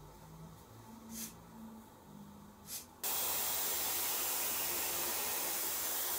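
A handheld hair dryer switches on abruptly about halfway through and runs with a steady, even rushing hiss. Before it there are only a couple of brief soft rustles.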